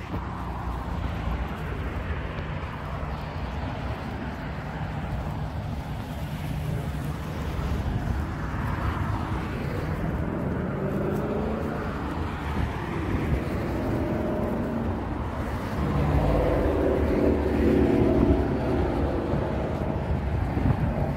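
Road traffic: cars driving past one after another, with a louder vehicle going by from about three-quarters of the way in.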